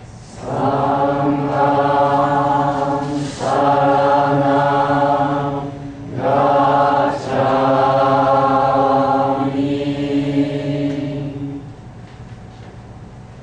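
Buddhist chanting in long, drawn-out held notes by low voices, in three phrases with short breaks between. The last phrase is the longest and dies away about twelve seconds in.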